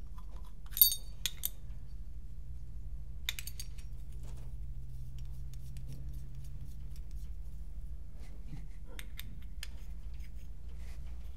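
Metal parts of a paintball marker's bolt assembly clicking and clinking as they are handled and fitted together, with one sharp ringing clink about a second in, a few lighter clicks just after, and faint ticks near the end.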